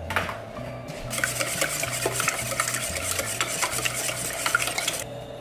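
Wire whisk beating a dozen raw eggs in a stainless steel bowl: a fast run of clinking, scraping strokes against the metal that starts about a second in and stops near the end.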